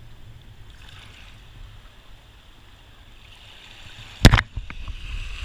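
Shallow seawater washing over a rocky reef, soft at first, then building to a louder rush of surf in the last second or two. A single sharp knock or splash about four seconds in is the loudest sound.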